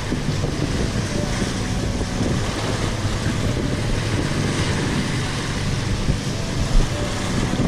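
Wind blowing on the microphone over the steady wash of sea waves, with a low steady hum underneath.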